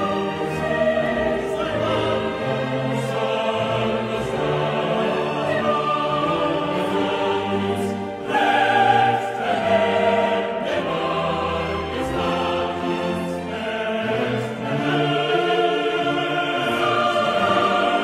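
Choral music: voices singing long held notes in chords, swelling louder about eight seconds in.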